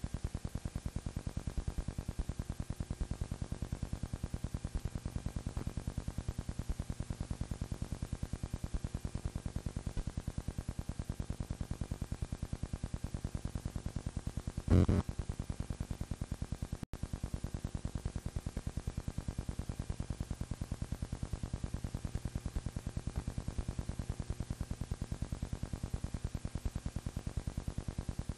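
Film projector running, its mechanism ticking rapidly and evenly over a low hum, with one brief louder thump about fifteen seconds in.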